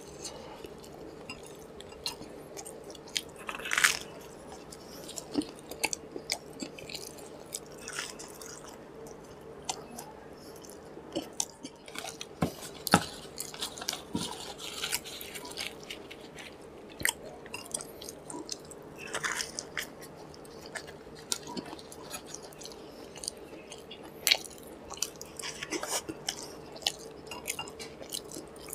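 Close-miked chewing and mouth sounds of a man eating fried puri and khichuri by hand, with scattered crisp clicks and crunches. A faint steady hum runs underneath.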